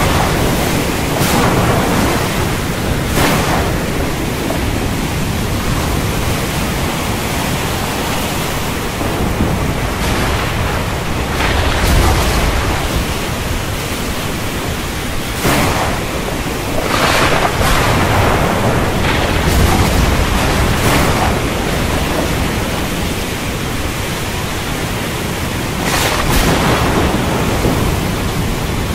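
Continuous storm ambience of wind and sea waves, with several surges and low rumbles of thunder.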